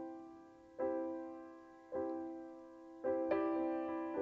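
Background piano music: slow chords struck about once a second, each ringing on and fading before the next.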